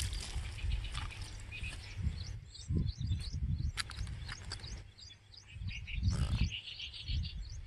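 Small birds chirping in quick, short calls, over gusts of wind rumbling on the microphone, with a couple of sharp clicks.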